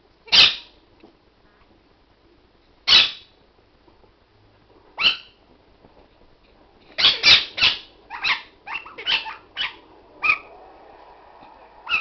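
A small dog barking in short, sharp, high-pitched barks during play with a parrot: single barks a few seconds apart, then a quick run of about eight, and one more near the end.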